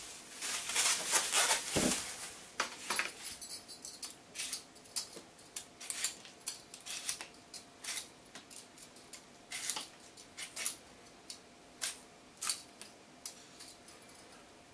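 Hand vegetable peeler scraping the skin off a daikon radish: a series of short, irregularly spaced scraping strokes, with louder handling of the radish in the first two seconds.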